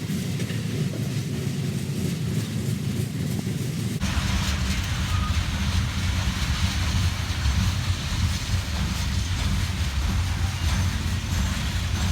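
A train passing: a steady rumbling noise that becomes abruptly louder and fuller about four seconds in.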